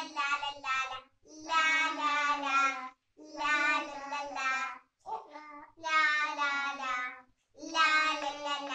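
A child singing a song unaccompanied, in phrases of a second or so with short breaks between them.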